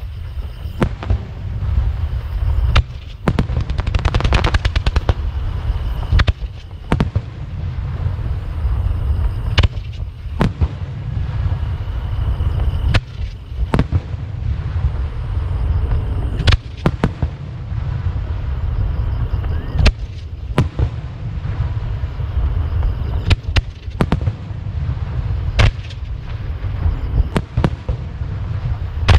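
Fireworks display: aerial shells launching and bursting in a series of sharp booms every second or two over a steady low rumble. There is a stretch of rapid crackling about four seconds in.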